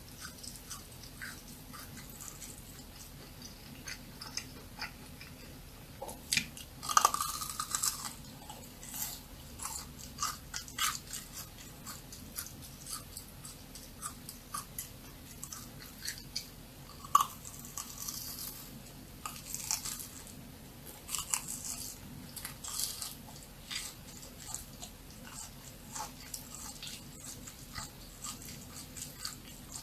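Close-miked biting and chewing of crunchy churros: a long run of crisp crunches and crackles, the loudest bites about 7 and 17 seconds in.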